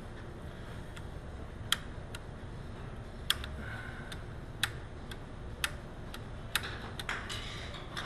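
Sharp, irregular metal clicks, about nine of them spaced half a second to a second apart, from a VW T3 (Vanagon) door latch being worked by hand while its over-center spring is fitted.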